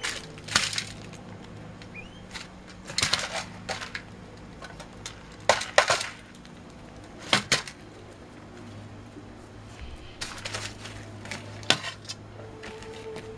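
Young peacock pecking food from a stainless-steel bowl: irregular clinks and taps of its beak against the metal, coming in clusters a few seconds apart, over a steady low hum.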